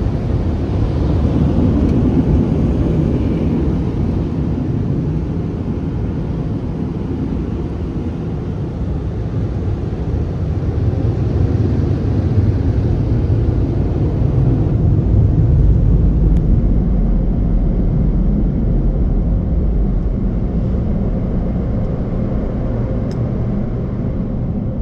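Tunnel car wash equipment running: a steady rushing rumble, with the deep low end growing heavier about two-thirds of the way through.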